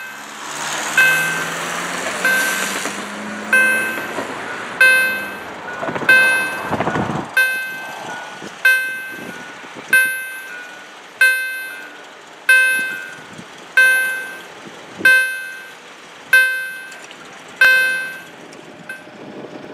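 Level-crossing warning bell ringing with a sharp strike about every 1.3 seconds while the crossing barriers lower, stopping near the end. A truck's engine runs underneath during the first few seconds as it drives over the crossing.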